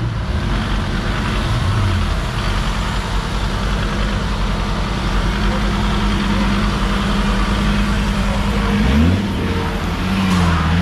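GAZ 69 trial special's engine running under load as it crawls through deep mud, with a brief blip of revs early on and a sharp rise in revs about nine seconds in.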